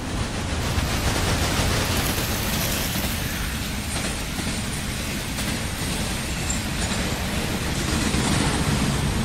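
Toy train passenger carriages rolling along a plastic track close by, giving a loud, steady rumbling clatter that cuts off suddenly near the end.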